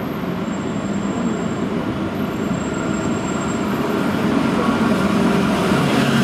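Translohr guided tram on Michelin rubber tyres approaching, its running sound steady at first and growing louder over the last couple of seconds.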